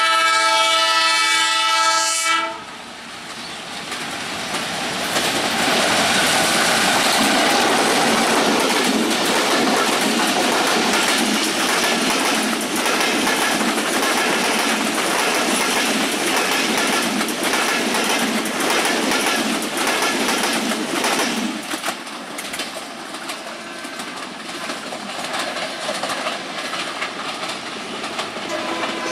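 Diesel-electric locomotive's air horn sounding a chord of several steady tones for about two seconds, then the passenger coaches of an express train rushing past close by, the wheels clattering rapidly over the rail joints. About three-quarters of the way through the clatter gives way to a quieter, more distant train running.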